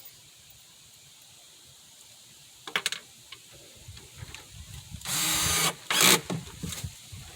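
Screw-driving and workshop handling sounds while assembling a plywood speaker cabinet: a click about three seconds in, a short rasping burst of a driver turning a screw about five seconds in, then a sharp knock and a few lighter knocks.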